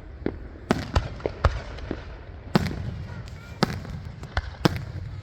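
Fireworks going off: a rapid, irregular string of sharp bangs, about ten in five seconds, each trailing a booming echo over a steady low rumble.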